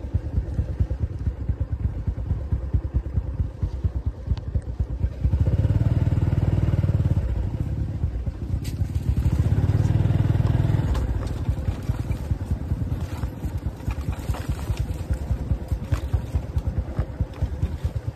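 A motorbike engine running steadily, with two louder stretches of a couple of seconds each, about six and ten seconds in.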